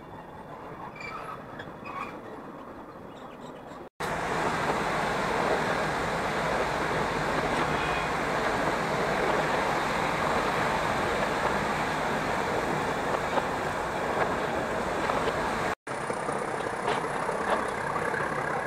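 Nilgiri Mountain Railway toy train heard from on board as it runs along the line. It starts quieter with scattered wheel-on-rail clicks, breaks off abruptly about four seconds in into a loud steady rushing running noise, then breaks off again near the end back to clicking rails.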